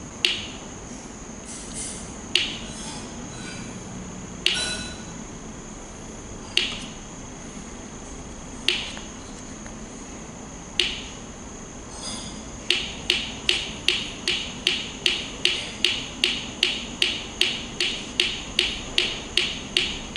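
Small loudspeaker ticking like a metronome, driven by a two-transistor pulse oscillator: one sharp click about every two seconds, then, after the potentiometer is turned, an even run of about three clicks a second from a little past the middle.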